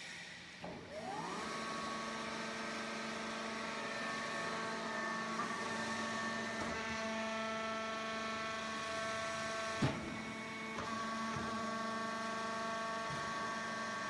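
Vertical hydraulic coir-fibre baler's electric motor and hydraulic pump starting up, the whine rising in pitch about a second in and then running steady. A single sharp knock comes near ten seconds in.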